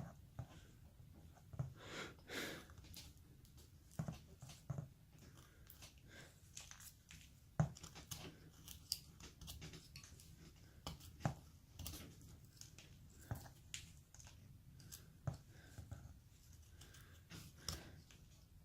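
Carving knife slicing and paring basswood: irregular short cuts and scrapes, roughly one a second, with a few sharper clicks, the loudest about a third of the way in.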